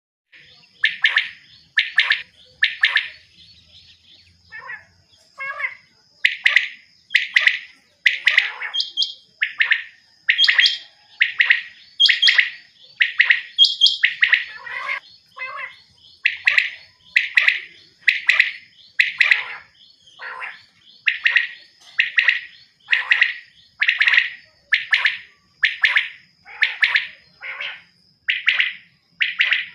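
A quail calling over and over with short, sharp notes, about one a second, a few fainter ones a few seconds in, over a faint steady high whine.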